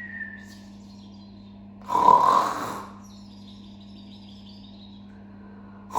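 A person making pretend snoring sounds, as for sleeping birds: one snore about two seconds in and another starting at the very end.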